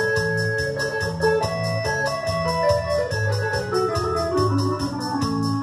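Electronic keyboard played with an organ-like voice over a steady, evenly repeating beat. Through the middle, a run of notes steps down in pitch.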